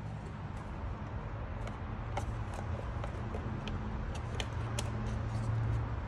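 Faint, irregular clicks and taps of plastic relays, a module and wiring connectors being handled and pulled in a motorcycle's under-seat relay box, over a steady low hum.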